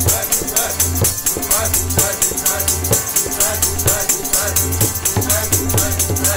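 Sikh keertan: voices singing gurbani to harmonium and tabla, with a steady low drone and fast, even jingling percussion.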